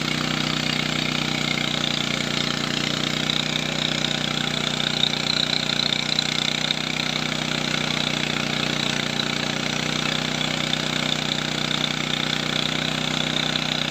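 Machinery running steadily at constant speed: a low, even engine-like hum with a hiss over it, without a break.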